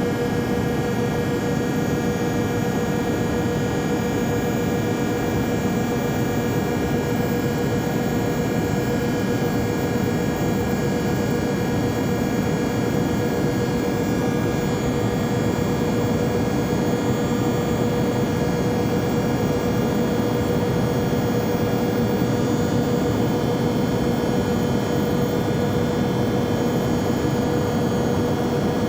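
Jet airliner cabin drone: an even rushing noise with a steady hum tone and fainter high whines, unchanging throughout.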